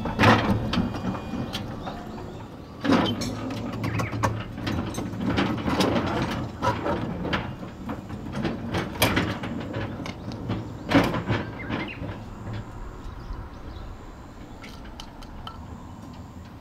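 Small mine-railway train running on its narrow track: a low rumble with sharp clanks and rattles, fading over the last few seconds.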